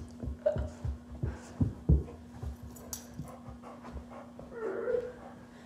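Irregular low thuds of bare feet and a young silver Labrador's paws on carpet as the boy and dog scuffle, with the dog panting.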